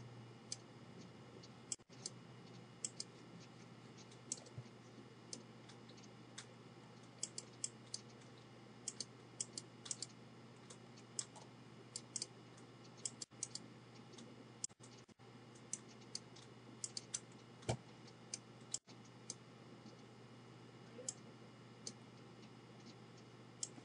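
Computer mouse button clicking, many short sharp clicks at irregular intervals, often in quick pairs, as the mouse is used to draw strokes. A faint steady hum lies underneath.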